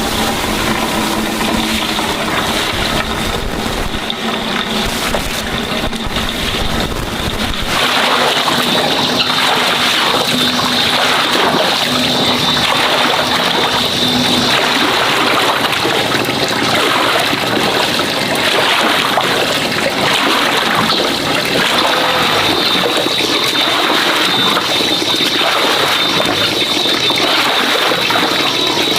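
Water running and splashing steadily and loudly. About eight seconds in the flow changes: the deep rumble drops out and it turns brighter and hissier. A faint, steady high tone runs through it.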